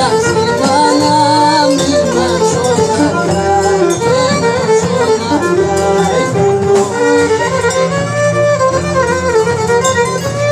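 Loud traditional Greek folk dance music: an ornamented melody that bends and turns, over a steady low accompaniment.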